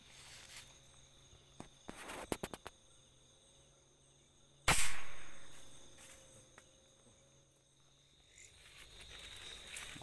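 One sharp air rifle shot about halfway through, fired up into an oil palm crown at roosting birds, preceded a couple of seconds earlier by a quick run of small clicks. Night insects chirp faintly and steadily underneath.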